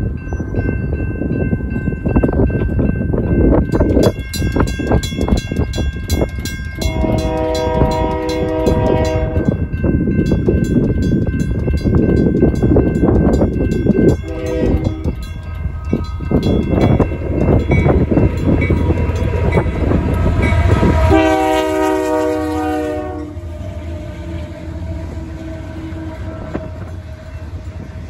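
Railroad crossing bells ringing fast and steadily: a WCH mechanical bell that sounds rough in the cold, together with a General Signals electronic bell. Over them, an approaching Union Pacific coal train's locomotive sounds its multi-note air horn in several blasts, the last and loudest about three-quarters of the way in. A heavy low rumble runs underneath as the lead locomotives reach the crossing near the end.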